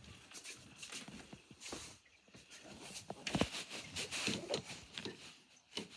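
Irregular footsteps with knocks and rustling, growing busier about halfway through.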